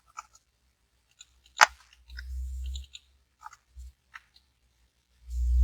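Scattered, irregular clicks of a computer mouse and keyboard, with one sharper, louder click about one and a half seconds in. A low muffled rumble comes briefly around two seconds in and again near the end.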